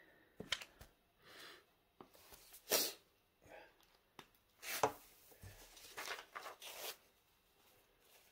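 Paper and glue-stick handling on a wooden table: short scratchy rubs and rustles as a glue stick is worked over a sheet of origami paper and the sheet is lifted to be folded. There are a dozen or so brief bursts, the sharpest about three and five seconds in and a quick run of them near the end.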